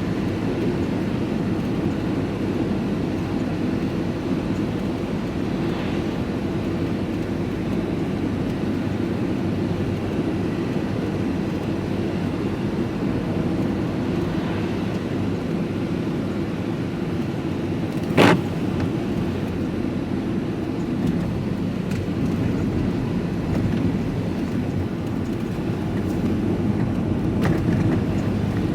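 Steady engine and road noise inside a vehicle's cab while driving, with a single sharp knock about two-thirds of the way through.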